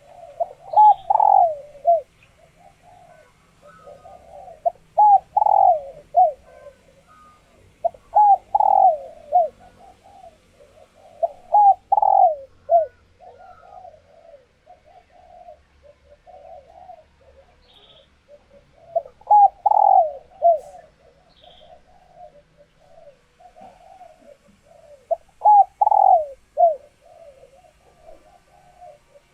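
Female spotted doves cooing, in laying condition: the call used to rouse male doves into calling back. Six loud coo phrases come every three to four seconds, with a longer pause midway, and softer cooing runs between them.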